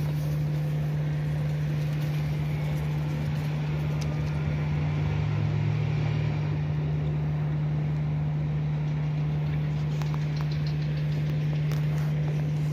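Steady low hum of an idling vehicle engine, unchanging in pitch, over street background noise, with a few light clicks near the end.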